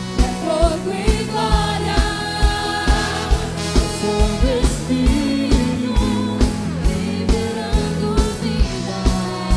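Gospel worship band music with a steady drum beat of about two to three hits a second under sustained keyboard or guitar and voice lines.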